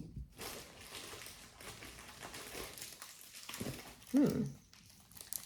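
Faint rustling of jewelry and packaging being handled, with one short low sound that falls in pitch about four seconds in.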